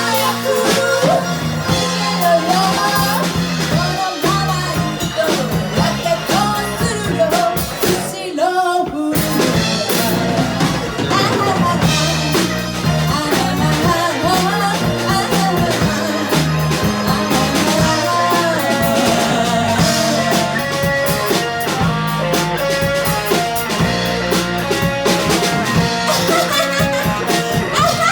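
Live band playing an upbeat Shōwa-era kayōkyoku pop song: drum kit, bass and singing over keyboards and guitar. The band drops out briefly about eight seconds in, then comes straight back in.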